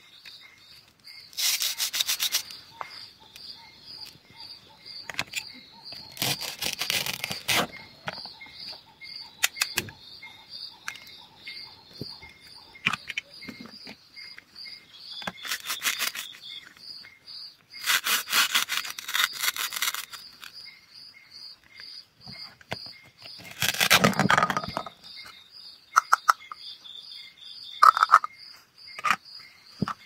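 Velcro joins of plastic toy fruits and vegetables being pulled apart: a rasping velcro rip about five times, with a few sharp plastic clicks between, over a steady insect chirping.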